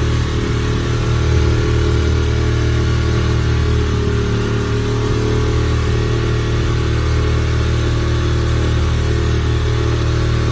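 Small motorboat's engine running steadily at cruising speed, a constant low hum with a steady hiss over it.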